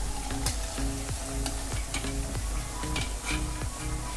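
Cabbage pakodas deep-frying in hot oil in a steel kadai: a steady sizzling and bubbling, with a slotted steel spoon stirring and lifting them out and a few sharp clicks.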